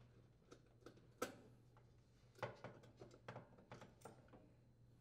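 Faint, scattered clicks and light metal scrapes as the oven sensor probe is handled and worked loose from the oven's rear wall, the sharpest click about a second in and a cluster of smaller ones in the second half.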